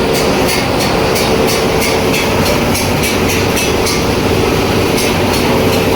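Scrap copper wire granulator running, a steady machine hum with a regular clatter of about two to three beats a second.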